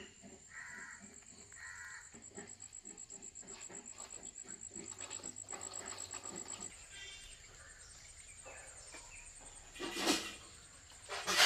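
Crows cawing in an outdoor morning soundscape, with two loud, harsh caws near the end, over a steady high-pitched insect drone.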